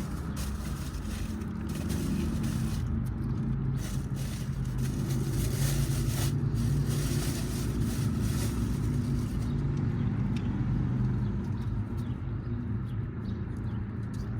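Steady low hum of a car engine running, heard inside the cabin, swelling a little in the middle. Scattered short clicks and rustles over it during the first two thirds.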